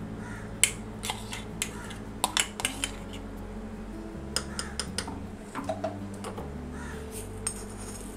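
A metal spoon and a spatula clinking and scraping against a stainless steel bowl and a small tempering pan as the fried tempering is scraped into the tomato chutney and stirred in. The sharp clinks come irregularly, the loudest about half a second in.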